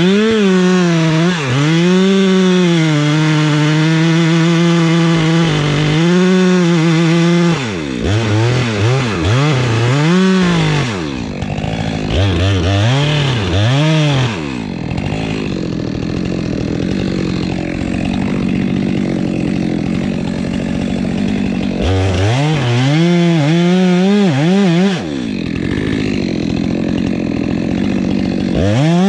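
Chainsaw cutting into the base of a eucalyptus trunk during felling, running at high revs under load. About a third of the way in, and again near the end, the engine revs up and down quickly several times. In the middle the engine note sinks and blurs for several seconds as the bar works deep in the cut.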